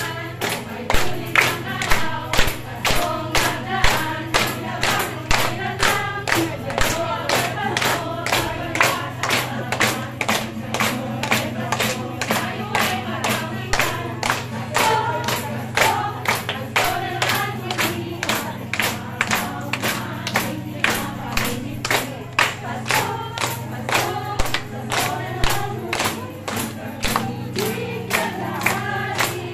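A small group of women singing a Christmas song with acoustic guitar accompaniment, tambourines struck on a steady beat of about two strikes a second.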